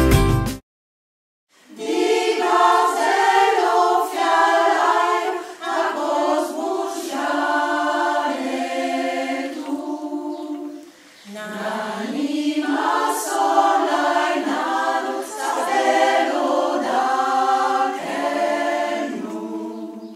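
A cappella choir singing as background music, in two long phrases with a short break about ten seconds in. It opens with the last half second of an earlier piece, then a second of silence before the singing starts.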